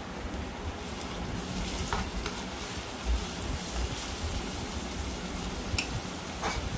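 Sliced onions and ginger-garlic paste sizzling steadily in hot oil in a kadai while being stirred with a spatula, with a few light knocks of the spatula against the pan.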